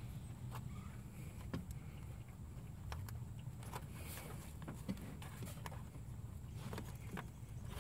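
Faint clicks and light rattles of a plastic wiring connector and loose wires being handled in an engine bay, over a steady low hum.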